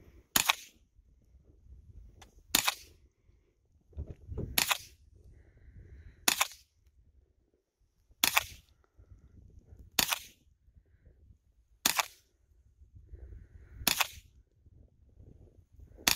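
Ruger 10/22 semi-automatic .22 rifle firing nine single shots at a steady pace of about one every two seconds, the last one right at the end.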